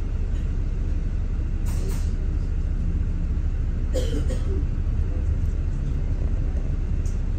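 Steady low rumble of a double-decker bus driving, engine and road noise heard from inside the upper deck, with two brief hisses about two and four seconds in.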